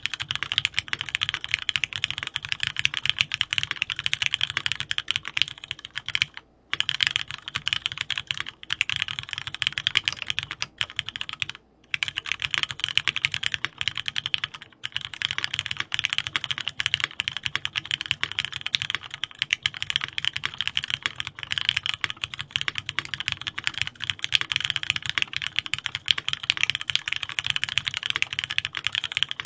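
Rapid, continuous typing on a keyboard, with brief pauses about six and a half, twelve and fifteen seconds in.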